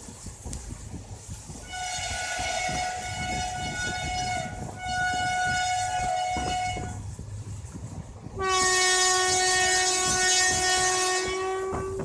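Dual-tone horn of a WAP4 electric locomotive: two blasts on the higher note, then after a short gap one longer blast on a lower note. Underneath, the train's wheels clatter over the rail joints at speed.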